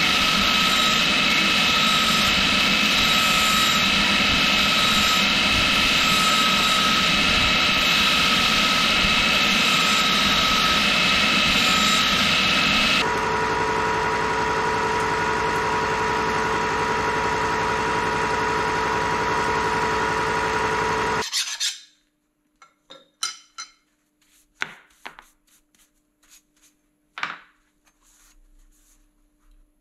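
Belt grinder running with steel pressed against the abrasive belt, throwing sparks: a steady grinding hiss over the motor's whine. About 13 seconds in it changes to a milling machine running, a steady hum with a whine, which cuts off suddenly about 21 seconds in. After that come scattered light clinks and knocks of metal parts being handled.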